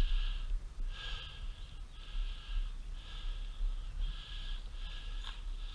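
A person breathing hard close to the microphone, a hissing breath in and out about once a second.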